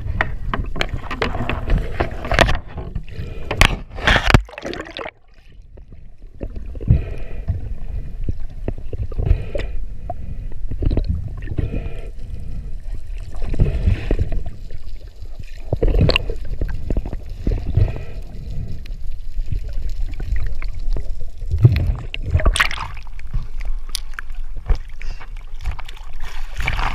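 Water sloshing and gurgling, with several sharp knocks in the first five seconds.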